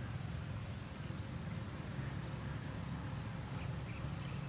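Steady low rumble of outdoor background noise, with no distinct event.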